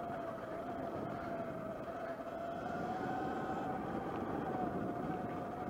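Sur Ron electric dirt bike's motor whining steadily while riding, its pitch wavering slightly with speed, over tyre noise on a gravel track.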